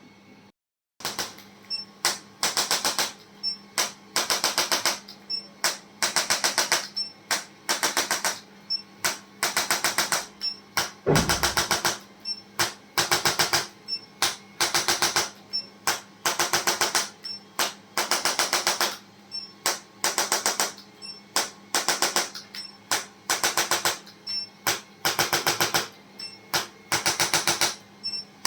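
Rapid mechanical tapping in short bursts, each a quick run of clicks, repeating about once or twice a second; it starts abruptly about a second in. The bursts are typical of a handheld percussive adjusting instrument working on the body.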